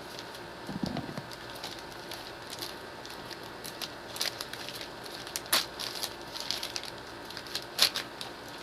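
Packaging being handled and opened: scattered crinkling and crackling, with a soft bump about a second in and a few sharper clicks later.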